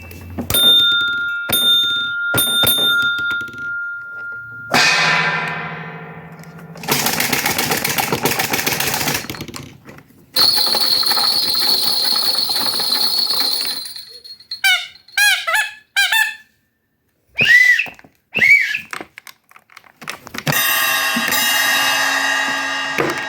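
Fotoplayer sound-effect traps played one after another: a steady high tone with a few sharp taps, a falling sweep, a few seconds of noisy rushing, a steady high whistle, quick rising-and-falling chirps, and a full chord-like horn tone near the end.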